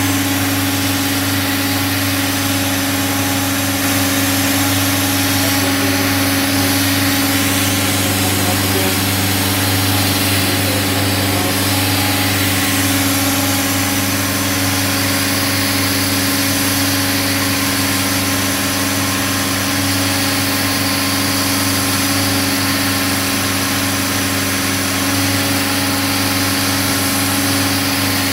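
Self-generating nitrogen servicing cart running steadily: a constant machine drone that holds an even pitch and loudness, with no change in speed.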